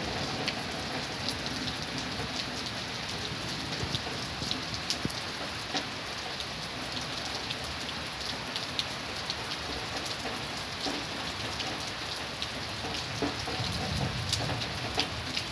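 Rain pouring steadily, with many sharp ticks of drops hitting nearby surfaces; a low rumble swells briefly near the end.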